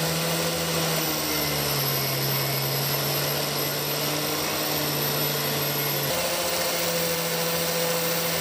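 Small angle grinder, clamped in a fixed jig, running steadily as its wheel trims the edge of a wind-turbine magnet rotor disc, with a slight shift in pitch about six seconds in.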